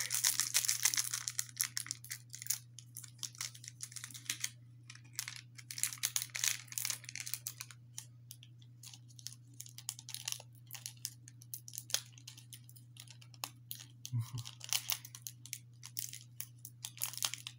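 A trading-card booster pack being torn open and its wrapper crinkled as the cards are worked out, in irregular crackly rustling bursts.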